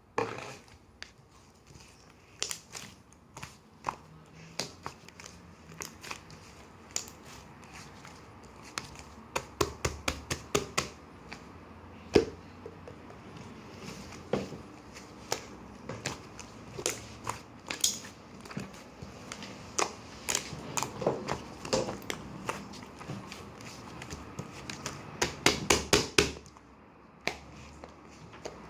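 Irregular series of sharp clicks and taps with some crinkling, as of objects being handled close to the microphone, thickest in a quick cluster near the end.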